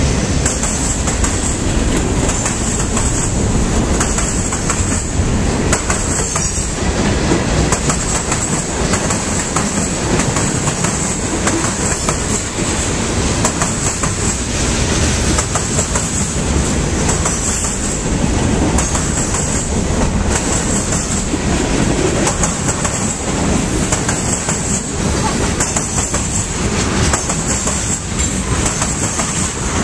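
Freight train cars rolling past close by: a steady rumble of steel wheels on rail, with frequent sharp clicks as the wheels cross rail joints.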